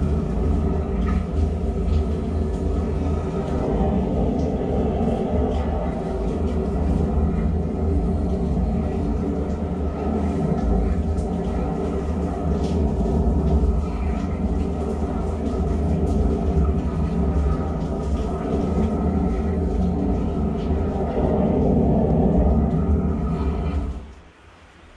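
Spartan high-pressure sewer jetter running with its Warthog rotating root-cutting nozzle spraying and spinning inside the drain pipe: a loud, steady sound that cuts off abruptly about a second before the end.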